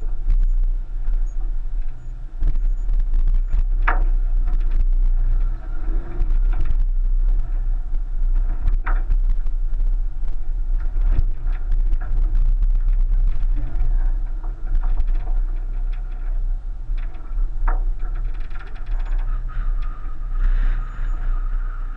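1999 Subaru Forester's flat-four engine and body working slowly over a rutted dirt track, heard through a roof-mounted camera as a steady low rumble. Three short high creaks come about 4, 9 and 18 seconds in.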